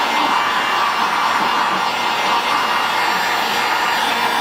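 Electric heat gun running at a steady blow, a constant rushing of hot air, as it heats marine vinyl to soften it for bending.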